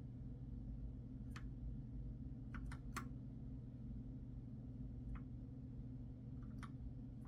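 Keys on a keyboard pressed one at a time: about seven scattered single clicks, three of them close together a little before the middle. A steady low hum runs underneath.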